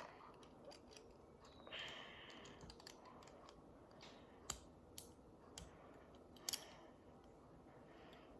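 Faint, scattered clicks of small plastic toy pieces being handled and fitted together, four sharp ones in the second half, with a soft rustle about two seconds in.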